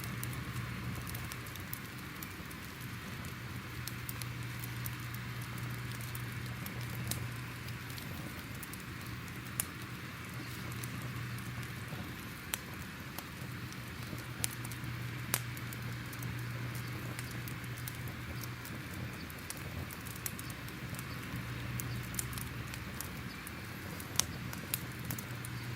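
Crackling fire: a steady hiss over a low rumble, with irregular sharp pops and snaps scattered throughout.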